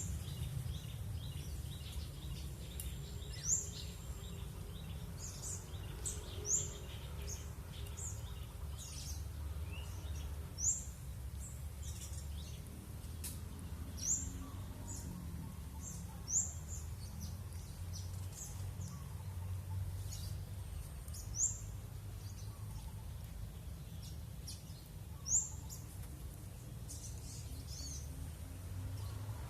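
Small wild birds calling: short, high chirps repeating every few seconds, several at once, over a steady low background rumble.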